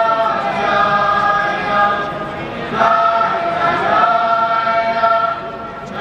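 A large crowd of men and boys singing together as one choir, holding long notes that shift in pitch every second or two.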